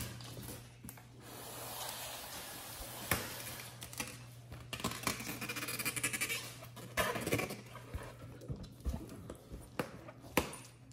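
A Pomeranian puppy playing with a rubber balloon on a tile floor: scattered clicks and taps of claws and the balloon on the tiles, with a stretch of scratchy rubbing in the middle as the puppy bites and mouths the balloon.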